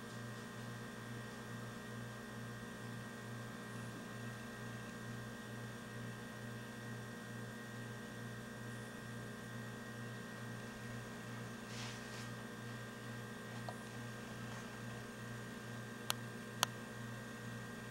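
Steady electrical mains hum, with two sharp clicks about half a second apart near the end.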